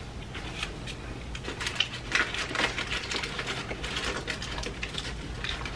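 Close-miked chewing of a sub sandwich: a steady run of small wet clicks and crackles from the mouth.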